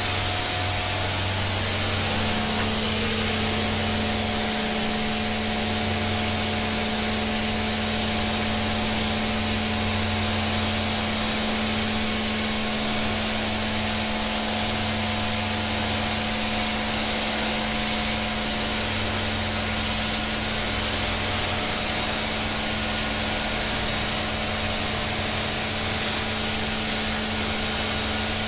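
Tooluck KPR-7.3B electric pressure washer running and spraying: a constant hiss of high-pressure water over the steady hum of the motor and pump, with a steady tone joining the hum about two seconds in.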